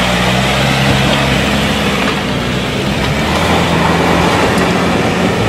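An off-road 4x4's engine running steadily at a low, even pitch.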